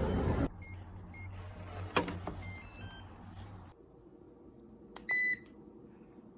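An electronic appliance: a steady whirring noise cuts off about half a second in, followed by several short button beeps at different pitches, a sharp click, a low hum that stops, and one longer beep near the end.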